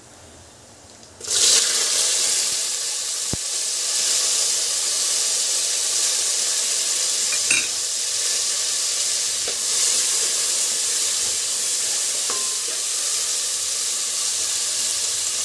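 Frozen green peas hitting hot oil with cumin seeds: a loud sizzle breaks out suddenly about a second in and stays steady while the peas are stirred, with a few light knocks of the spoon on the aluminium pot.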